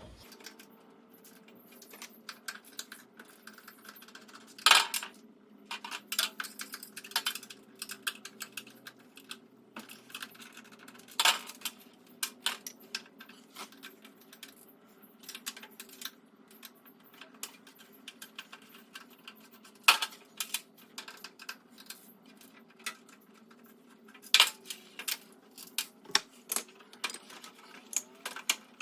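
Irregular metallic clinks and clicks of bolts, nuts and hand tools being handled while caster wheels are bolted onto a metal tool cart, with a few sharper knocks among them, over a faint steady hum.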